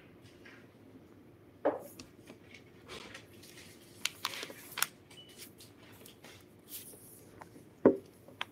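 Scattered small clicks, taps and rustles of objects being handled, with two louder dull thumps, one about two seconds in and one near the end.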